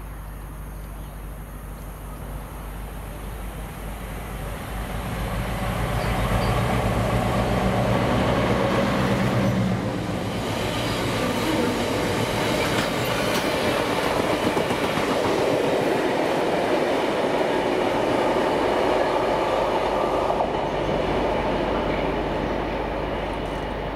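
DB Cargo Class 60 diesel locomotive 60059 approaching with its engine running, growing louder over the first several seconds. From about ten seconds in, a long train of tank wagons rolls past, its wheels running over the rails in a steady wash of noise that eases off near the end.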